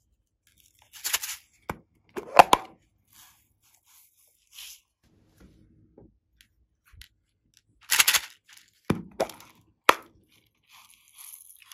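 Small clear plastic glitter containers handled and tapped while glitter is shaken out onto slime: short plastic clicks and rattles in two clusters, about a second in and again around eight seconds, with a few quieter taps between.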